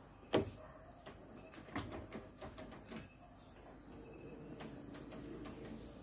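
A sharp clunk shortly after the start and a few lighter knocks, then from about four seconds in a metal lathe spinning a clamped cylinder head runs with a faint steady hum.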